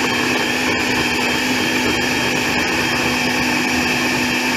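Countertop blender running steadily at full speed, its motor whirring as it blends a pale liquid mixture in the jug.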